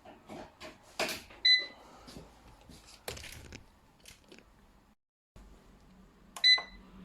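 Electric pressure cooker's control panel beeping twice: one short beep about one and a half seconds in and another near the end, with clicks and clatter of the cooker and its plug being handled between them.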